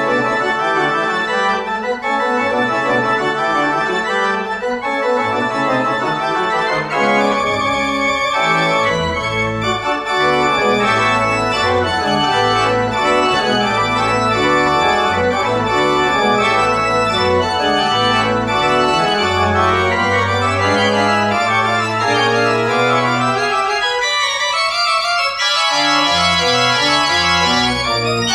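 Two-manual church organ played with hands and pedals: a continuous piece with several lines of sustained notes moving over a low bass, and one low note held for a few seconds in the second half.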